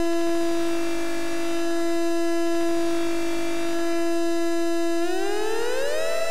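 Homemade ghost-detector synth, an electric-field sensor driving an Atari Punk Console circuit through a reverb circuit, holding a steady electronic tone. Near the end it glides smoothly up about an octave, trailed by reverb echoes. The pitch is the sensor's control voltage following the electric field around it.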